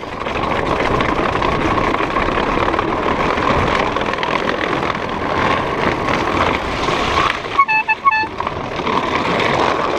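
Wind buffeting the microphone and tyre rumble from a bicycle riding along a wooden boardwalk, a steady rushing noise. About three-quarters of the way in, a quick run of four or five short electronic beeps cuts through.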